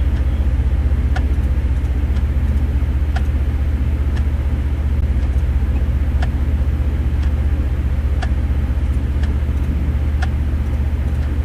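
Vehicle engine idling with a steady low hum, and a faint tick about once a second.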